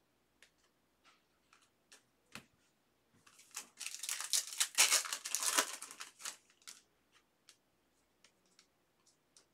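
Foil trading-card pack torn open with a crinkling, tearing rip lasting about three seconds, starting about three seconds in. Scattered light clicks of cards being handled come before and after it.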